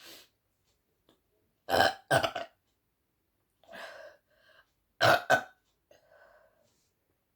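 A woman's loud burps brought up by gulping a carbonated apple soda: two loud burps about three seconds apart, each breaking into two quick pulses, with a softer burp after each.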